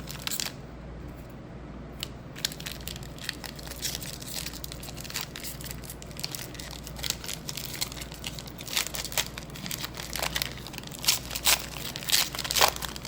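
Crinkly wrapper of a baseball card pack crackling as it is handled and opened, a dense run of irregular crackles that grows louder near the end.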